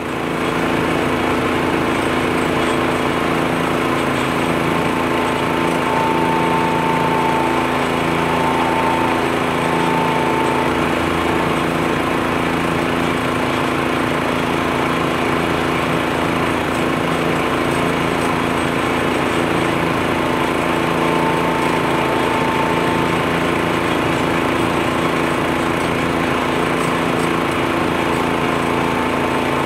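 Tractor-mounted 14-horsepower leaf blower running at a constant speed: a loud, steady engine drone that holds the same pitch throughout.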